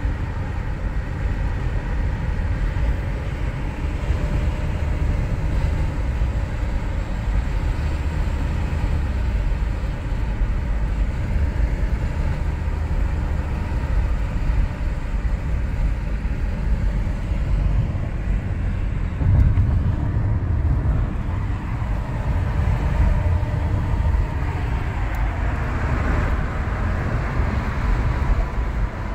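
Steady road noise inside a moving car's cabin at highway speed: a low rumble of tyres and engine, with a brighter hiss rising near the end.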